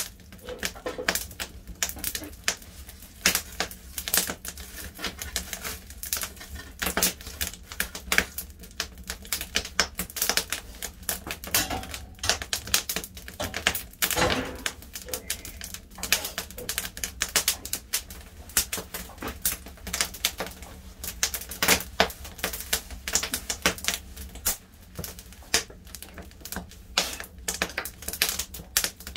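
Firewood crackling as it burns: a dense, irregular run of sharp snaps and pops, over a low steady rumble.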